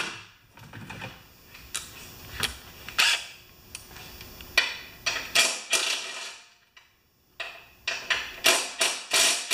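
Sharp, irregularly spaced clicks and knocks from a cordless drill with a half-inch socket working on the bolts of a Craftsman snowblower's auger housing.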